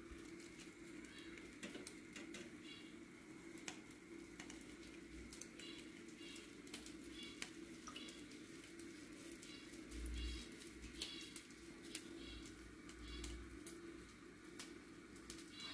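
Quiet kitchen room tone over a steady low hum, with soft clicks and bumps of hands pressing mashed bread into a ball and dipping it in batter. Faint high chirps recur every second or so.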